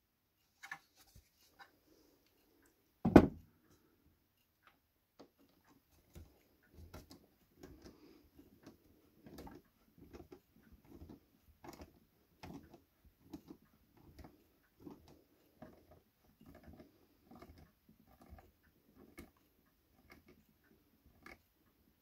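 A screw being turned by hand with a screwdriver into the base of a model display stand: a run of short, soft creaks and clicks, about one or two a second, as the screw works its way in. A single sharp knock comes about three seconds in.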